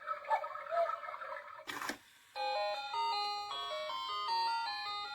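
HUGE HAPPINESS cuckoo clock striking the hour: faint cuckoo calls in the first second or so, then after a short pause its little chime-like melody of clear stepped notes starts playing, about two and a half seconds in.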